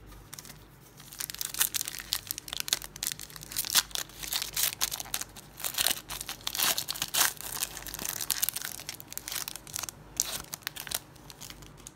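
Foil wrapper of a Panini Prizm football card pack crinkling and tearing as it is ripped open and the stack of cards is pulled out, a dense run of crackles from about a second in until near the end.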